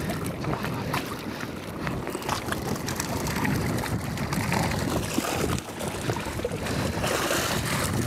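Wind buffeting the microphone over choppy water slapping a small wooden fishing boat, with scattered knocks and rustling as a net full of fish is hauled in over the gunwale.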